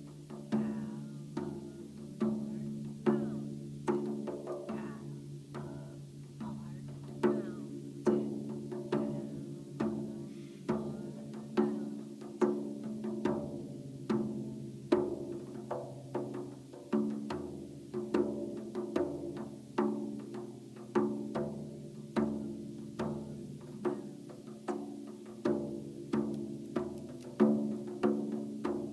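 Hand drum, likely a frame drum, played in a repeating five-beat rhythm. Each stroke rings with a low pitch, and some strokes come out louder than the rest.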